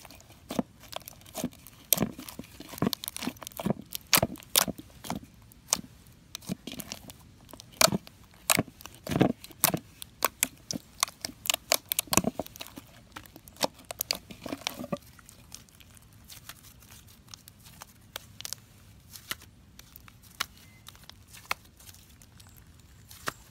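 Clay slime being kneaded and squished by hand, giving rapid sticky clicks and pops. About halfway through the clicking thins to a few scattered pops.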